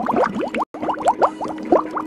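Cartoon underwater bubbling sound effect: a quick run of rising bloops, several a second, over a steady low hum. It cuts out for an instant a little over half a second in.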